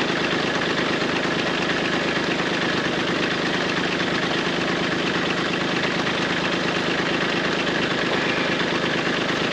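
Small tractor's engine idling steadily after a long stretch of driving a wood chipper through its PTO, left running to cool down.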